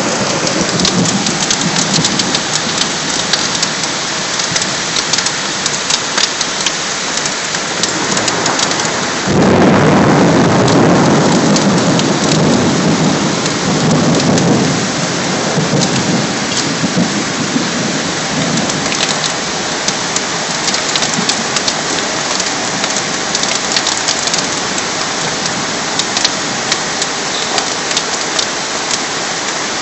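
Heavy rain pouring steadily onto the street, with individual drops ticking close by. About nine seconds in a louder, deeper rush sets in suddenly and eases off over several seconds.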